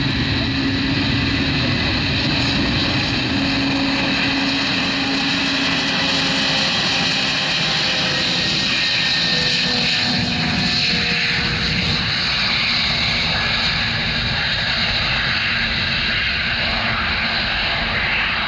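Four Progress D-18T turbofans of a fully loaded Antonov An-124-100M at takeoff thrust on its takeoff roll: loud, steady jet engine noise with a whine riding on it, as the aircraft passes and then heads away down the runway.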